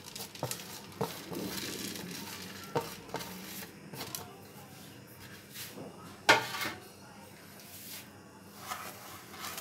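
Kitchen utensils knocking against a metal cooking pan as dried fruit and seeds are tipped from a bowl into dry roasted semolina: scattered sharp knocks and clicks, the loudest about six seconds in, then a spoon working through the mixture near the end.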